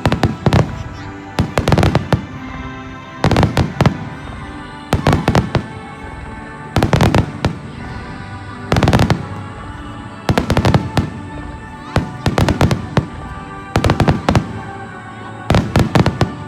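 Starmine fireworks barrage: clusters of sharp bangs, about ten of them, one every second and a half to two seconds, over music with sustained tones.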